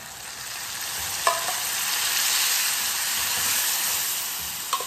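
Cooked beans spooned into hot lard with fried onion, garlic and colorau, sizzling; the sizzle swells over the first couple of seconds, then eases. A metal spoon clinks against the pans twice, about a second in and near the end.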